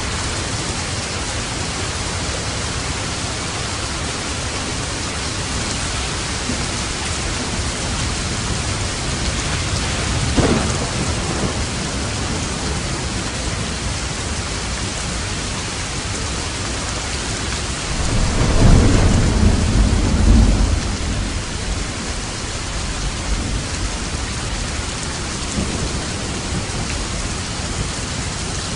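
Steady heavy rain with thunder: a short crack about ten seconds in, and a louder, longer rumble of thunder a little past the middle.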